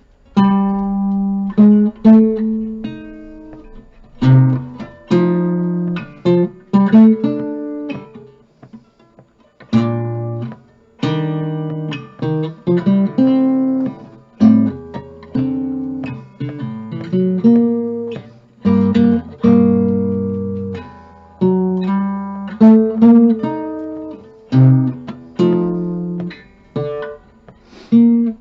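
1951 Epiphone Triumph Regent cutaway archtop acoustic guitar played solo: chords struck one at a time and left to ring out, with short pauses between phrases.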